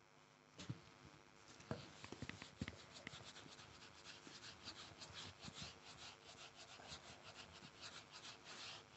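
Faint whiteboard duster rubbing quickly back and forth across a whiteboard, several scratchy strokes a second, after a few light knocks in the first seconds.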